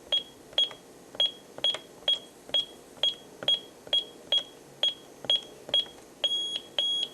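Honeywell Lynx Plus alarm keypad beeping as its keys are pressed, a short high beep with a click at each press, about two a second, as a code is keyed in. Near the end come three longer beeps, which signal that the new code was accepted.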